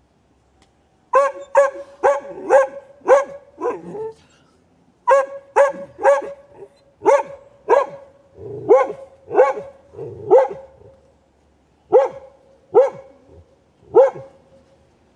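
A dog barking repeatedly in quick runs of sharp barks, starting about a second in, with short pauses between the runs.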